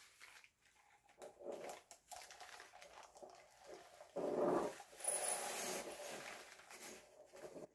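Plastic bags of small coloured stones rustling, then the stones pouring and rattling into small glass jars with plastic crinkling, from about five seconds in. Two brief pitched whines, about a second and a half in and about four seconds in; the second is the loudest sound.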